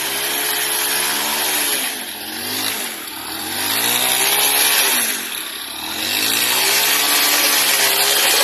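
Small step-through motorcycle engine revving hard in repeated rising and falling surges as it climbs out of a river onto gravel, easing off briefly about two and five seconds in.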